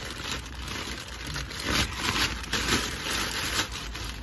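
Irregular rustling and light scraping as a new brake rotor and a white cloth are handled.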